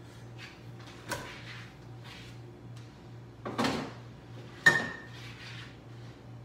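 Kitchen handling sounds over a steady low hum: a light click, then a refrigerator door pulled open about three and a half seconds in. Just after comes a sharp clink with a brief ring, the loudest sound.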